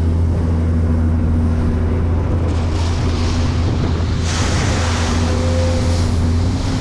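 A heavy machine's diesel engine running steadily at a constant speed, with a rushing noise that swells about two and a half seconds in and again, louder, a little after four seconds.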